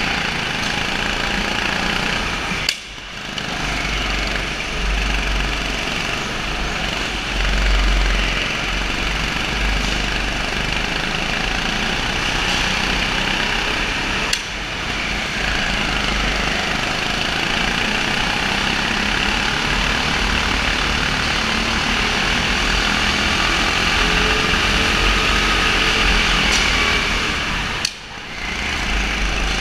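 Go-kart engine running hard in an indoor kart race, its note rising and falling with the throttle. It drops away briefly three times: about three seconds in, around the middle, and near the end.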